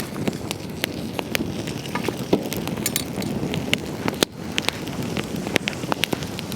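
Wood campfire crackling, with many sharp irregular pops and snaps over a steady low rush of burning flames.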